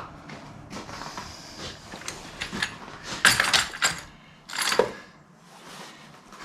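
Metal clicks and clinks of hydraulic quick-connect couplers being handled and worked together by hand, with a cluster of clatters a little past three seconds in and another sharp one near five seconds. The couplers are stiff, which the owner puts down to pressure trapped in the lines.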